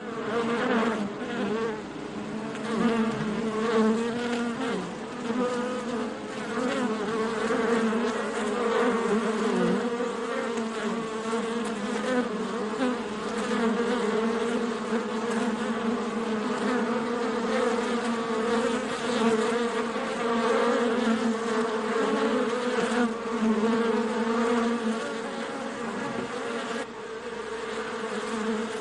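Many bees buzzing together at a beehive: a dense, steady hum of overlapping wingbeat tones that waver slightly in pitch and swell and ease in loudness.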